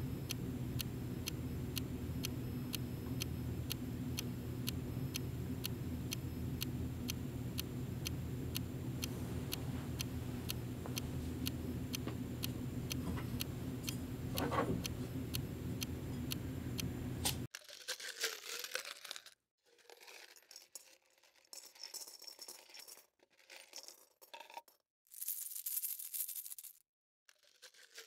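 A low steady hum with regular ticks about twice a second, cutting off suddenly after some seventeen seconds. Then scattered short clinks and crinkles of coins dropping and paper crumpling, with gaps between them.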